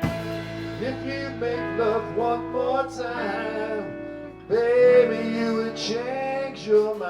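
A band playing a country-rock song, with guitar over held chords and a melodic lead line that bends between notes.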